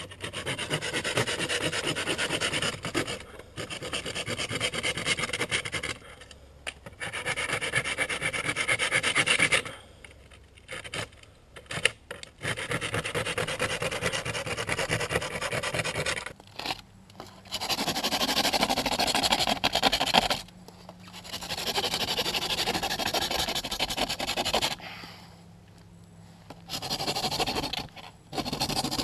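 Bahco folding pruning saw cutting through a small stick with rapid back-and-forth rasping strokes, in bouts of about three seconds with short pauses between.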